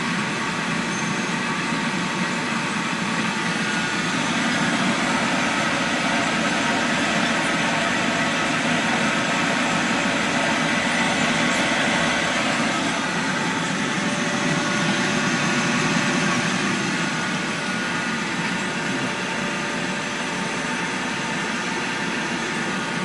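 DEK Universal 1209 furnace dryer running: a steady machine whir with a few faint steady tones, unchanging throughout.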